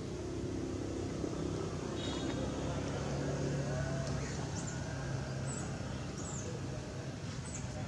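Steady low engine hum, like a vehicle running nearby, with a few short high chirps in the second half.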